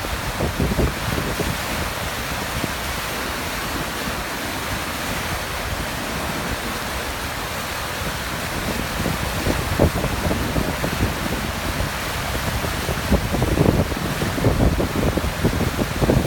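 Steady rushing roar of the water going over Niagara Falls, with wind buffeting the microphone in gusts that pick up toward the end.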